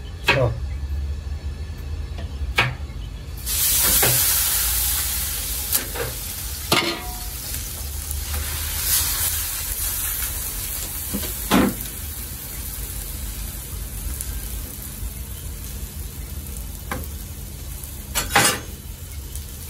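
Minced meat for Isfahani beryan sizzling in fat on a wide flat steel pan. A loud sizzle rises about three seconds in and slowly dies away. Several sharp metal knocks from a ladle against the pot and pan are scattered through, over a low steady hum.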